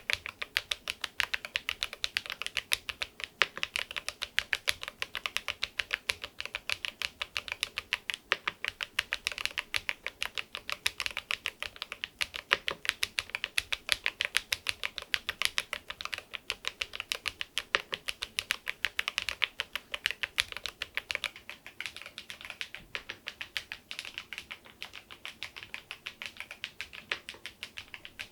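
Keysme AIM04 HE aluminium keyboard with magnetic Hall-effect switches being typed on steadily and fast, several keystrokes a second, fitted with replacement keycaps.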